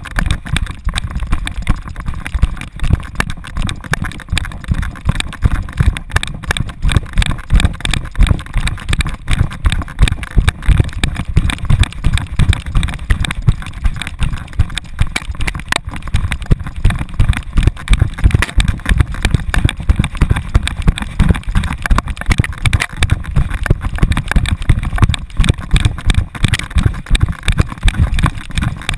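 Rapid, continuous deep thumping from a galloping dog's strides jolting the GoPro strapped to its back, with wind rushing over the microphone.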